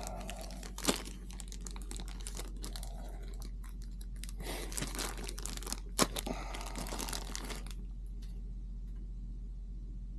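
Small clear plastic bag crinkling and rustling as it is handled and opened, with a couple of sharp clicks, about a second in and about six seconds in. The rustling stops about three-quarters of the way through, leaving a steady low hum.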